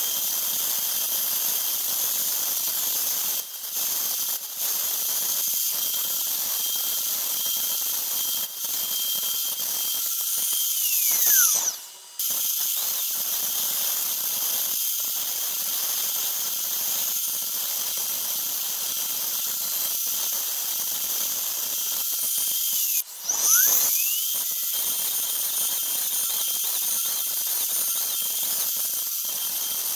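CNC router spindle running at speed while it mills plastic, giving a steady high-pitched whine. Twice, about a third and three quarters of the way through, the whine sweeps down in pitch and briefly drops out before it returns.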